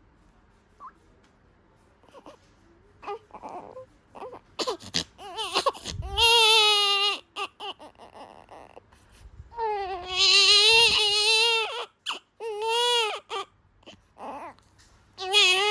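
Newborn baby crying: after a quiet start and a few small fussing sounds, it breaks into long, wavering wails, the loudest about halfway through, with short gasps between them.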